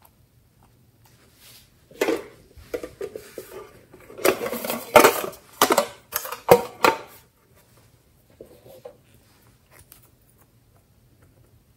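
A small tin box being handled and opened: a run of metallic clicks, clanks and rattles lasting about five seconds, loudest near the middle, then only a few faint taps.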